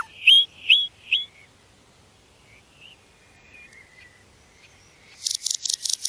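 Common nightingale singing: three loud, rising whistled notes in the first second, a quiet pause with a few faint notes, then a fast, dry rattling phrase starting about a second before the end.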